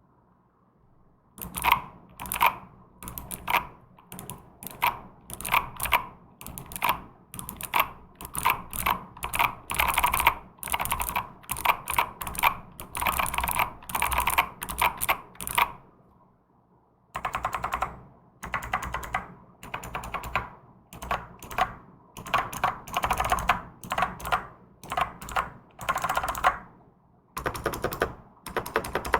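Typing on a custom mechanical keyboard with Outemu Spring Breeze (春風) switches, in a foam-filled case with a 5 mm plate: quick runs of key presses in bursts, starting about a second in, with a short pause about halfway through.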